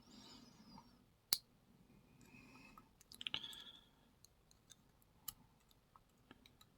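Small metal clicks and taps from handling lock parts while a pin-tumbler challenge lock is taken apart: one sharp click about a second in, a quick cluster around the middle and a few faint ticks after. Soft breathing can be heard in between.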